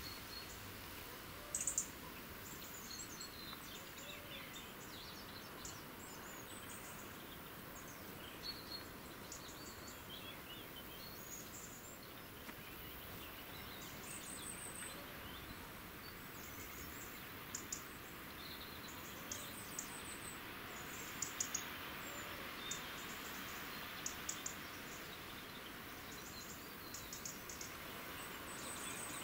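Steady outdoor background hiss with scattered small bird chirps, plus faint quick high clicks that come in short clusters, most often in the second half.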